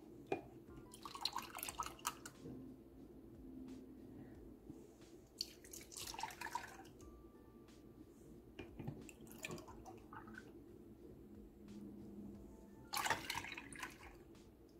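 Milk poured from a glass measuring cup into a saucepan, splashing in three short pours with drips in between.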